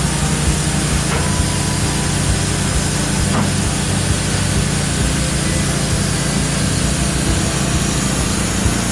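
Wood-Mizer LT15 portable band sawmill running steadily, its band blade cutting through a log.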